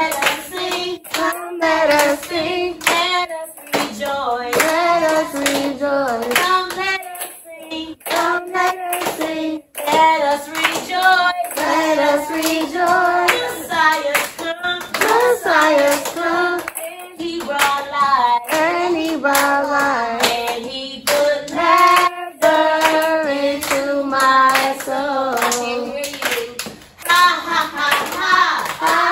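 A group of children singing a worship song together, clapping their hands along in rhythm.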